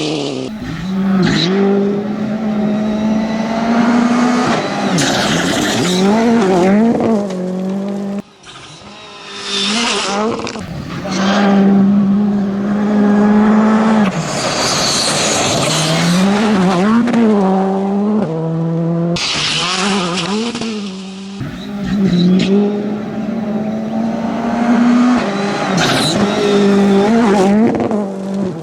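WRC2 rally cars at full throttle, engines revving up and down through gear changes and lifts, one car after another. The sound cuts off abruptly a couple of times as it jumps between cars.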